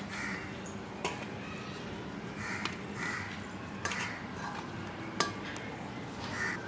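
A few light taps and clicks on a steel tray, about a second or more apart, with a faint background hum.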